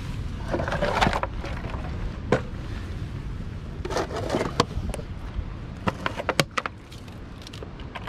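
Hands and sleeves scraping and knocking against dry, weathered driftwood logs while reaching down into a log jam. There is a scrape about a second in, another about four seconds in, and a quick run of sharp clicks and taps later on, over a steady low rumble.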